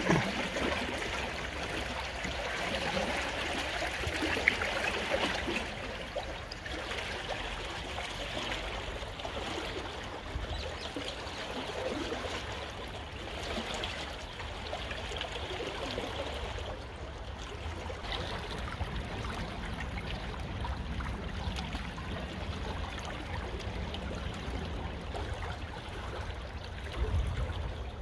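Fast-flowing river water, high after heavy rain, running and lapping with a steady rush. A low rumble grows near the end.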